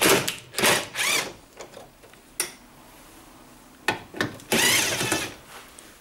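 Cordless drill-driver spinning in short bursts as it backs screws out of a tumble dryer's sheet-metal casing: three quick runs at the start, then a longer run with a wavering whine a little past the middle.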